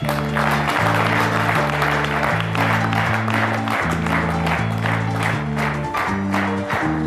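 Studio audience applauding over music with a bass line that moves from note to note; music and clapping start together at the outset.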